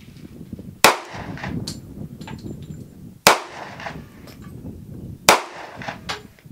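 Three shots from a Kimber Ultra Carry 1911 pistol in .45 ACP, the first about a second in, the next two roughly two and a half and two seconds apart, each followed by a short echo.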